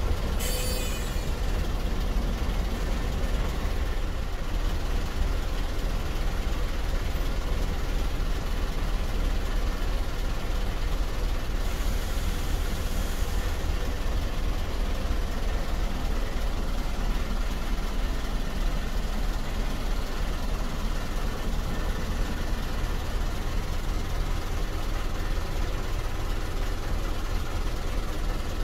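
Steady low rumble of motor vehicles running and idling, with a short hiss about twelve seconds in.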